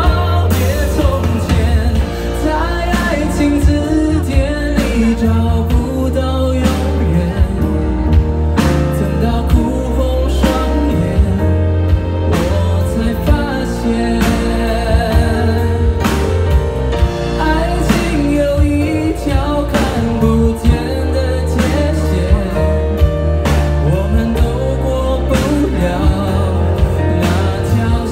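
Live band playing a Mandarin pop song: drum kit, bass guitar, electric guitars and keyboards under a male lead vocal, with a steady bass line and regular drum hits.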